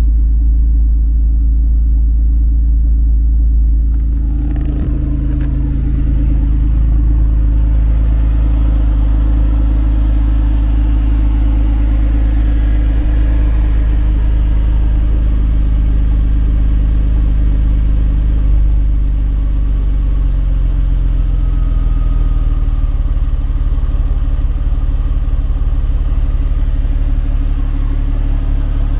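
Porsche 911 997 Carrera 4S's 3.8-litre flat-six idling steadily shortly after a cold start. At first it is heard from inside the cabin, then from about four seconds in it is heard close up at the open engine lid.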